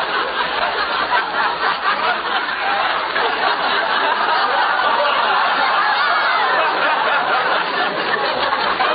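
Studio audience laughing, one long unbroken wave of laughter.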